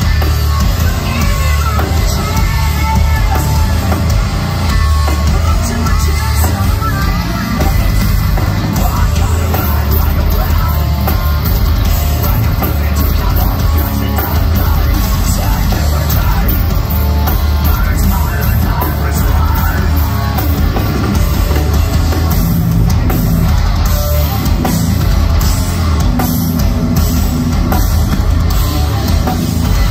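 Live heavy metal band playing loud and steady, with distorted guitars, bass and drums under a female vocalist singing into a microphone.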